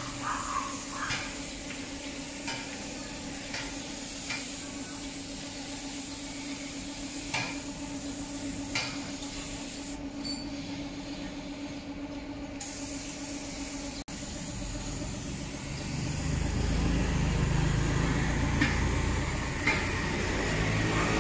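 Compressed-air spray gun hissing steadily as a wood finish is sprayed onto wooden furniture, over a steady low hum. The hiss stops for a couple of seconds about ten seconds in. A louder low engine-like rumble starts about three-quarters of the way through and runs on.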